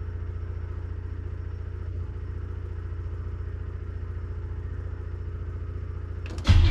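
Starter cranking a 1957 Chevy engine, turning it over steadily without it firing. Music comes in loudly and abruptly near the end.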